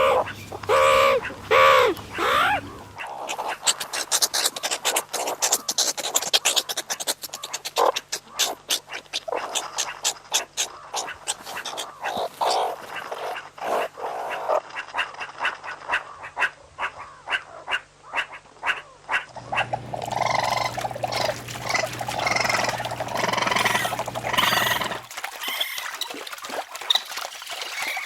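Animal calls in several short recordings one after another: a few loud calls with a wavering pitch at the start, then a long run of rapid chirps and clicks, then denser calling over a steady low hum.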